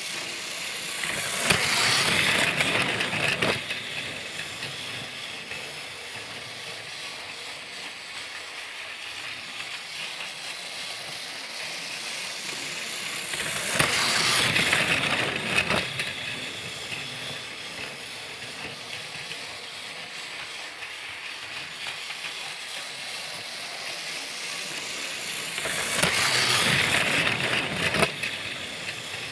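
Motorized Thomas the Tank Engine toy train running, a steady rattling hiss of its motor and wheels that swells louder three times, about every twelve seconds, with a click at the end of each swell.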